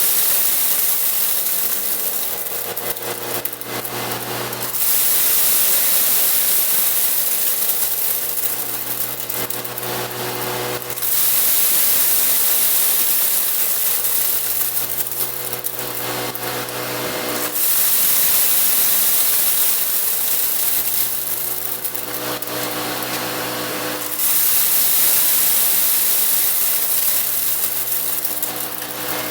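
A small electric wood chipper's motor runs while it granulates dried corn kernels. A loud grinding rush of kernels being chopped swells and eases in waves every several seconds as batches go through.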